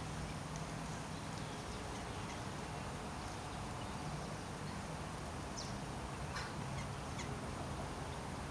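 Steady outdoor background noise with a low hum, and a handful of faint, short high chirps from small birds a little past halfway.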